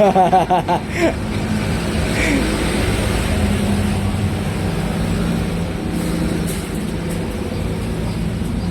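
A motor vehicle engine running steadily with a low, even hum. A short bit of voice sounds in the first second.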